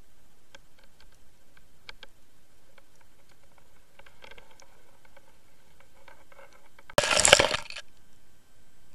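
Underwater camera box being pulled up through a hole in pond ice: faint scattered ticks, then a sudden burst of splashing and clinking of ice and water, under a second long, as it breaks the surface about seven seconds in.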